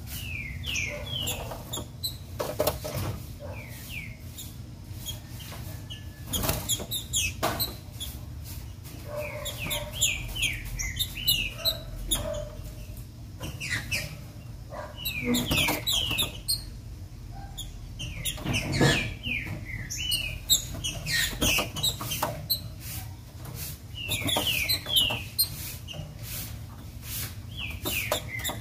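Female green-winged saltator (trinca-ferro) calling in short repeated bursts of quick downward-slurred whistles. Between them come sharp clicks and knocks as the bird hops about the perches and cage, over a steady low hum.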